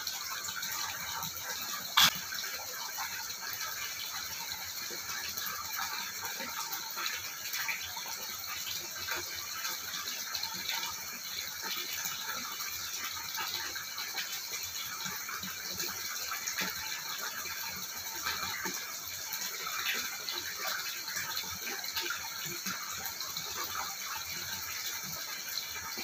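Pool water lapping and crackling right at the microphone: a dense patter of small irregular ticks over a steady hiss, with one sharp click about two seconds in.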